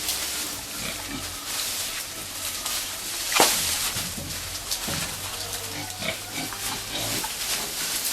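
Pigs feeding on freshly cut elephant grass: repeated short grunts amid the rustle and crunch of grass stalks. One loud, sharp noise comes about three and a half seconds in.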